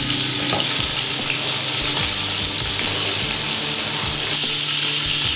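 Spiced chicken pieces sizzling steadily as they brown in hot olive oil and ghee in a pot, with light clatter of wooden tongs turning and lifting the pieces.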